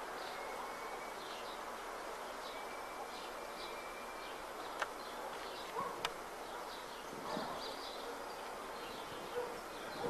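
Small birds chirping repeatedly in short high notes over a steady outdoor hiss, with two sharp clicks about five and six seconds in.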